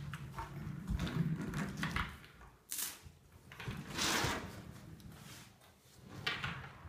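Small toy trucks being handled on a hardwood floor: short knocks and scrapes, with a longer scraping rustle about four seconds in.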